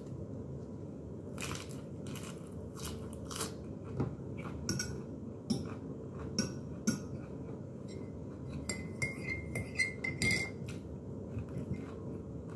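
A metal fork clinking and scraping on a ceramic dinner plate in a dozen or so sharp, irregular strikes, over a steady low hum. A thin high tone sounds briefly about nine to ten seconds in.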